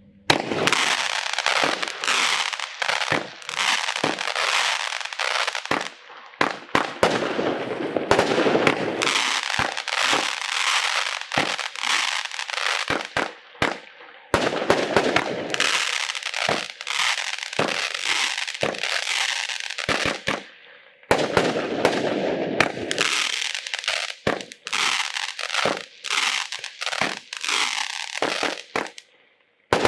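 WECO Rockstar consumer firework battery (F2 cake) firing: a rapid, continuous run of shots and bursts, with brief lulls about six, fourteen and twenty seconds in.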